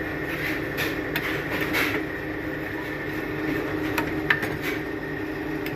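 Steady mechanical hum with a few light clicks and scrapes.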